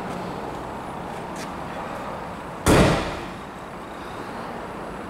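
A single sharp thump about two and a half seconds in, dying away within half a second, over a steady low hum.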